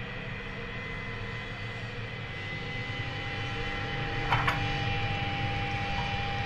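Low, steady droning rumble with faint held tones over it and a short crackle about four seconds in; an ambient drone of the kind laid under a tense scene.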